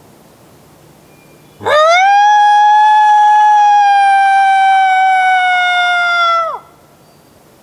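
Coyote howl blown on an MFK Blackout Howler hand call: one long howl that swoops up about a second and a half in, holds steady for about five seconds, then drops away at the end. It is a long, drawn-out lone howl meant to sound non-intimidating to coyotes in the area.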